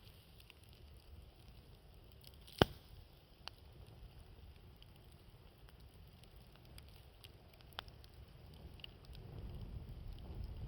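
Wood campfire crackling with scattered pops, one sharp and loud about two and a half seconds in. Under it runs a low wind rumble that swells near the end.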